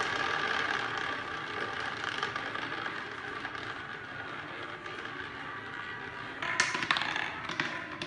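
Roulette ball spinning around the wheel's track, a steady rolling whir that slowly fades, then about six and a half seconds in it drops and rattles with a quick run of clicks as it bounces into the pockets.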